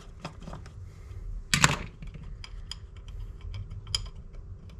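Light metallic clicks and taps from a screwdriver backing a small screw out of an S&S Super B carburetor's aluminum body, with fingers handling the small parts, and one louder clatter about a second and a half in.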